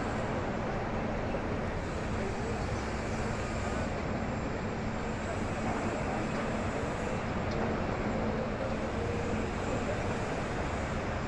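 Steady din of a crowd of pilgrims, many voices blending into one murmur, with faint nearer voices now and then.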